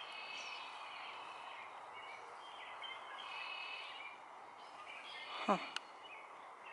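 Birds calling and singing over a steady background hiss. About five and a half seconds in there is a brief sound that falls sharply in pitch, with a sharp click right after it.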